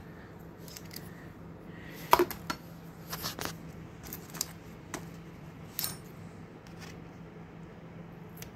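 Metal scissors clicking and clinking against a bicycle wheel rim as they snip at a piece of reflective strip sticking up from it: irregular sharp clicks, the loudest about two seconds in.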